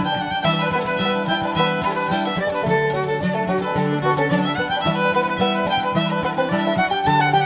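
Background music: a lively fiddle tune over plucked string accompaniment with a steady beat.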